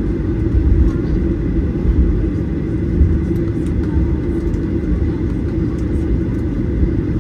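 Steady low rumble inside the cabin of a Boeing 737-800 with its engines running, with a thin steady high tone above it.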